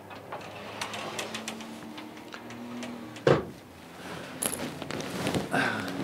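A sliding mirrored closet door runs on its track and bumps shut with one sharp knock about three seconds in. Small clicks and rustling follow as the bed's mattress platform is lifted.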